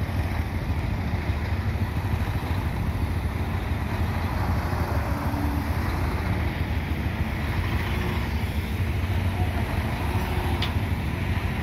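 A heavy diesel engine idling with a steady low rumble, mixed with road traffic passing by.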